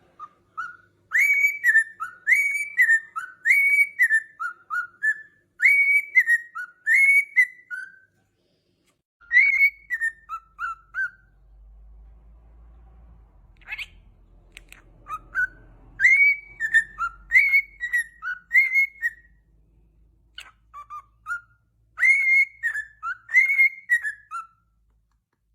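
A pet cockatiel whistling a learned tune: phrases of clear rising-and-falling whistled notes, repeated several times with short pauses between them. A faint low rumble runs under the middle stretch.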